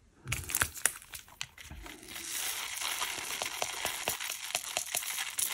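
Small plastic diamond-painting drills clicking and rattling against a plastic tray and zip bag, with the bag crinkling. A few separate clicks come first; from about two seconds in, a dense rustle of many tiny clicks follows as the drills are poured.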